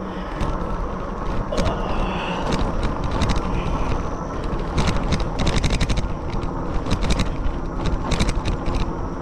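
Riding noise from a fat-tire electric bike: a steady rumble of wind on the microphone and tyres on the path. It is broken by repeated short sharp knocks and rattles, more frequent in the second half.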